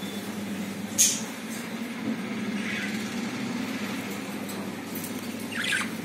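Budgie moving about inside a clay nest pot, with one sharp tap about a second in and soft scratchy rustles later on. A steady low hum runs underneath.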